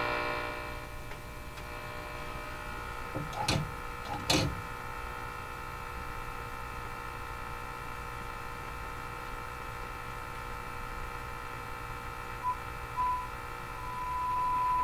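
Hallicrafters TW-1000 tube radio's speaker giving a steady hum and hiss while a signal generator is tuned toward the radio's dial setting. There are two sharp clicks a few seconds in. Near the end a steady test tone blips in twice and then holds as the generator's signal comes into tune.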